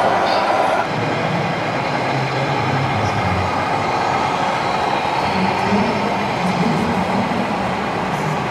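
Radio-controlled model trucks driving, heard as a steady mechanical hum and whine over a busy hall's background noise; a higher whine stops about a second in, and a wavering low hum comes and goes later.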